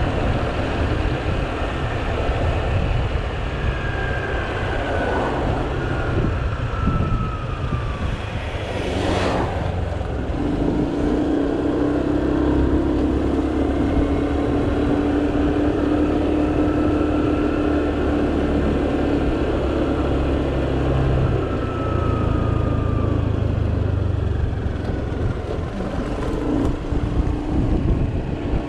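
Small motor scooter riding along a road, recorded on board: steady engine drone mixed with wind and road noise, with a brief swell about nine seconds in.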